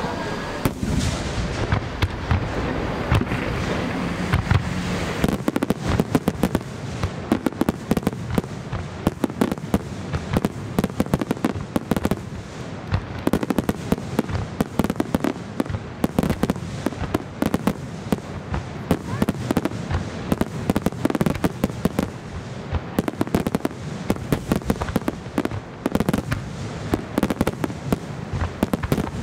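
Aerial firework shells bursting in a rapid-fire barrage: many overlapping bangs and crackles, growing much denser about five seconds in.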